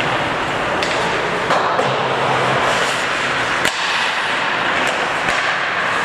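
Ice hockey play in an arena: a steady scraping hiss of skates on the ice, broken by half a dozen sharp clacks of sticks and puck, the loudest about three and a half seconds in.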